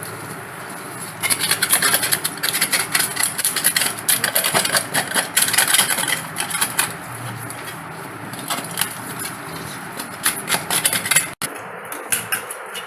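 Knife working on a snakehead fish as it is cleaned and cut: a quick run of rough scraping strokes for about six seconds, then scattered strokes, with a brief drop to silence near the end.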